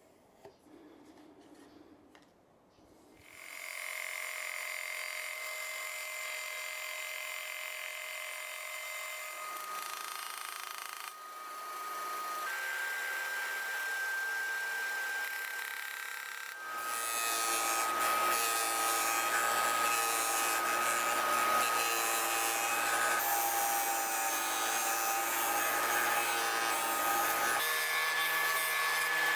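A few faint clicks and scratches of hand marking, then a benchtop band saw starts running and cutting thin sheet stock with a steady whine. The whine changes pitch abruptly several times. Near the end a disc sander grinds a small piece of wood.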